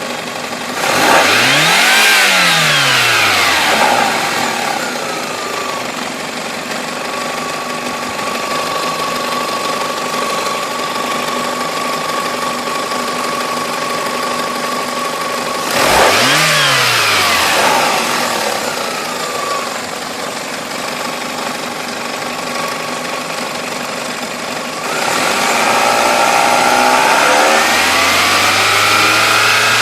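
Toyota 5S-FE four-cylinder engine idling, revved up and let fall back twice, about a second in and again about 16 s in, then held at a raised speed from about 25 s on. The engine shows blow-by and low vacuum at low to medium RPM, which the owner suspects comes from worn piston rings.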